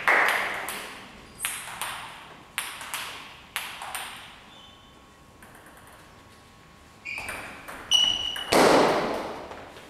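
Table tennis ball ticking off table and paddles, each tick ringing on in the big hall: a few slow bounces about a second apart, a short lull, then a quick exchange of hits near the end that finishes in the loudest bang.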